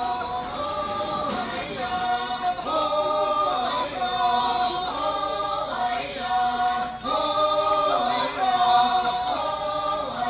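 Naga dancers, men and women together, chanting a traditional war song in chorus, in short phrases repeated about once a second.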